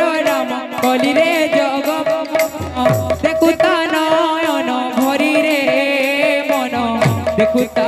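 Live Odia kirtan music: singing with wavering pitch over hand-played double-headed barrel drums, with busy percussion throughout. Twice a deep drum stroke slides down in pitch, about three seconds in and near the end.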